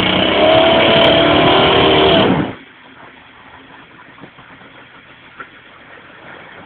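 Competition rock buggy's engine running hard under load, loud for about two and a half seconds, then dropping away sharply to a faint background.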